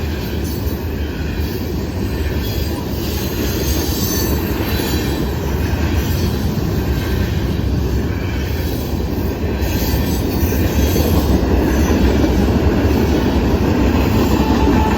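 Norfolk Southern manifest freight train's cars rolling past, a steady rumble of steel wheels on rail, growing a little louder about two-thirds of the way through.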